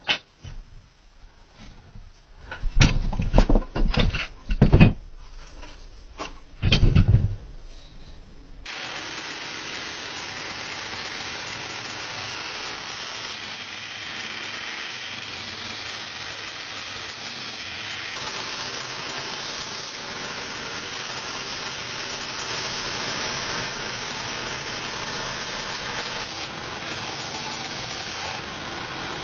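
Several loud knocks in the first few seconds. From about nine seconds in, a steady hissing noise of abrasive work on the steel blade, sanding or grinding, continues without a break.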